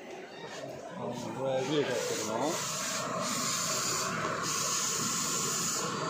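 A man speaking briefly, then a steady hiss that sets in about two seconds in and runs on, dipping briefly twice.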